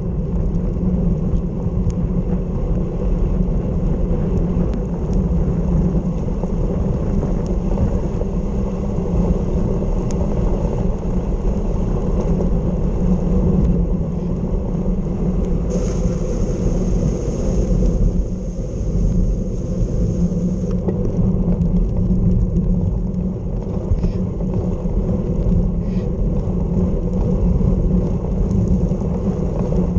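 Steady wind buffeting a bicycle-mounted microphone at road-cycling speed, with tyres hissing on a wet road. About 16 seconds in, a brighter hiss comes in for some five seconds.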